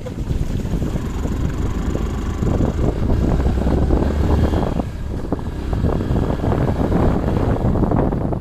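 Motorcycle running along a road, its engine rumble mixed with wind buffeting the microphone.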